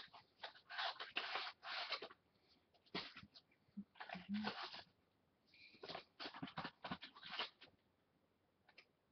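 Irregular rustling and scraping of packaging being handled and opened, in short bursts that stop about a second before the end.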